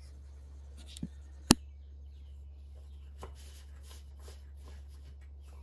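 Light handling sounds of a cloth cover being fitted over a glass jar and held on with its ring band: a soft tap about a second in, one sharp click about a second and a half in, then faint rustling and small taps. A low steady hum runs underneath.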